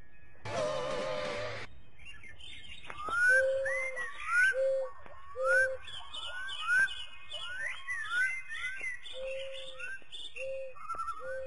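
Birds calling: a run of quick rising whistled chirps, with short steady low notes, the loudest sounds, coming about once a second among them. A short rough burst is heard about half a second in.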